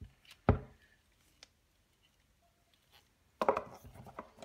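A Blue Snowball iCE microphone and its small tripod stand knocking against a desk while being handled: one sharp knock about half a second in, then a short clatter of small knocks and rattles near the end as the stand is set down on the desk.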